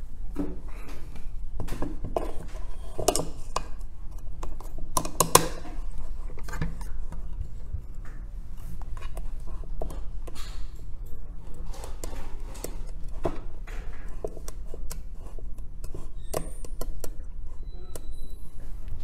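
A metal BGA reballing stencil and small tools being handled on a workbench: irregular light clicks, taps and scrapes, with a sharper clack about five seconds in, over a steady low hum.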